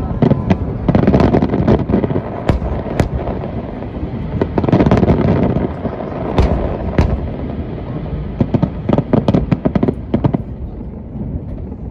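Aerial fireworks barrage: shells bursting in quick succession with heavy booms over a continuous rumble, and a rapid run of sharp crackling reports near the end.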